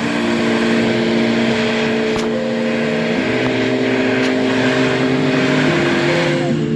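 Enduro dirt bike engine running under background music with sustained, organ-like chords that change about three seconds in and again near the end. The engine and riding noise fade toward the end, leaving mostly the music.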